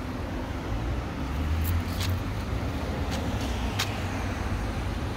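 Steady low rumble of a car running nearby, with a few faint clicks over it.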